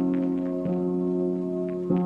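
Slowed-down song in an instrumental gap between vocal lines: a held, sustained chord with soft new notes entering about two-thirds of a second in and again near the end.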